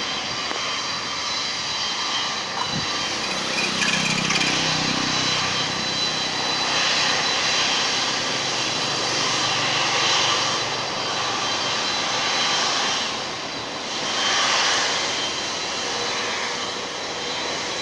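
Jet engine noise from an All Nippon Airways Boeing 787-8's Rolls-Royce Trent 1000 engines on the airfield: a steady rushing noise with faint high whine tones, swelling louder several times.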